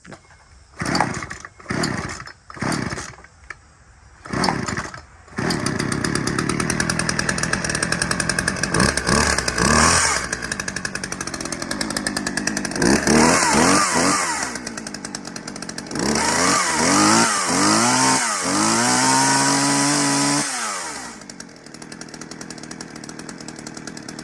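Old two-stroke chainsaw (model 2075) being pull-started after priming. A few short sputtering bursts come on the first pulls, and it catches about five seconds in. It runs and is revved up and down several times, then drops back to idle near the end. This is its first start after sitting unused for a few years.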